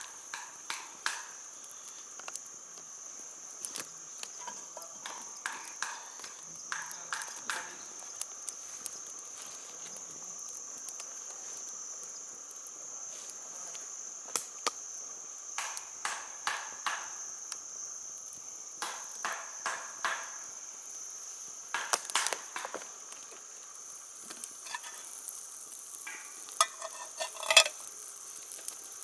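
Steady high-pitched insect chorus, with scattered light clicks and knocks over it, the loudest near the end.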